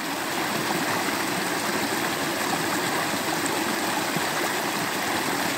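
Small creek running high after heavy rain, water rushing and splashing over rocks in a steady, even rush.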